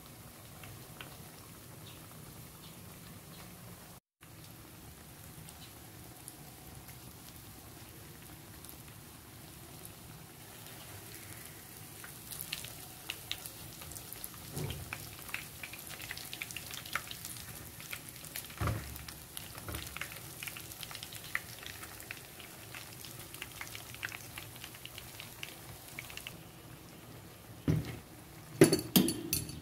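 Panko-breaded Spam slices deep-frying in hot oil in a pan: a steady fine sizzle and crackle that grows busier with louder pops about halfway through. A few sharp knocks near the end.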